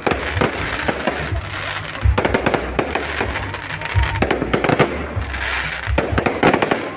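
Aerial fireworks bursting in rapid, irregular succession: many sharp bangs and crackles overlapping one another, with music playing underneath.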